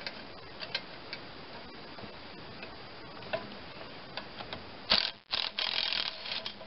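Light metallic clicks of a wrench and hands on the mule drive's pulley bracket, then about five seconds in a power tool with a socket runs on the pulley's retaining nut, stops for a moment, and runs again to spin the nut off.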